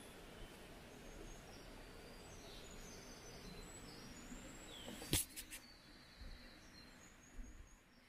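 Faint birdsong, short high chirps and whistles scattered through, over a steady background hiss. A sharp click about five seconds in, followed by a couple of lighter ticks, is the loudest sound.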